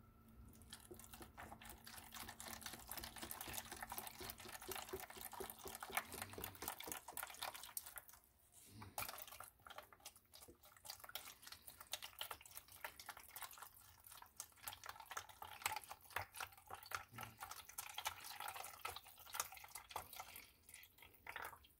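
Chicken broth pouring from a carton into a foil pan of chicken pieces: a faint, steady trickle and splash, with a short break about eight seconds in.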